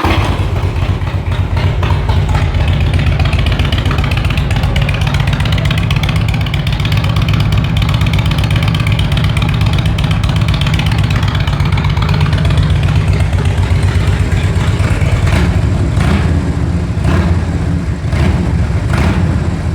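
2004 Harley-Davidson Road King's Twin Cam 88 V-twin, breathing through 3-inch dual-outlet exhaust tips and a sport air filter, running loud and deep at idle just after starting. A few short sharp cracks come near the end.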